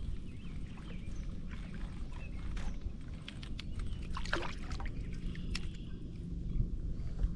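A hooked bluegill splashing and thrashing at the lake surface as it is reeled up beside a kayak, with a few short sharp clicks and a splash about four seconds in, over a steady low rumble.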